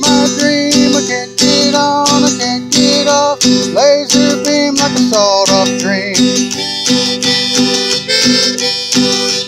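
Instrumental break of a song: guitar strummed in an even rhythm, with a harmonica playing bending notes over it.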